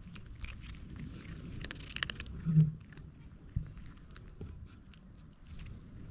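A cat chewing food, a run of small sharp crunching clicks with a denser cluster near two seconds in. A single dull thump about two and a half seconds in is the loudest sound.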